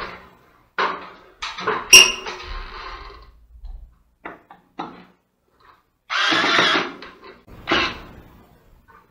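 Handling noises from a cordless drill-driver and screw being brought up to a wall plug: scattered knocks and rustles, a sharp click about two seconds in, and short noisy bursts about six and eight seconds in.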